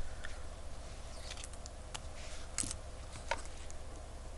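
A few faint, scattered clicks and taps of small metal tools handling a quartz watch movement, over a low steady hum.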